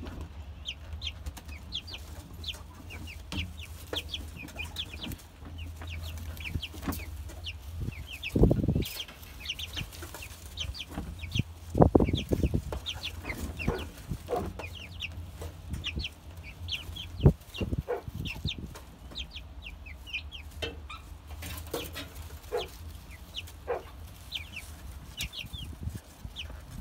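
Young pullets peeping and chirping over and over, short high calls throughout, over a steady low hum. A few louder low thumps stand out, about 8 seconds in, around 12 seconds and around 17 seconds.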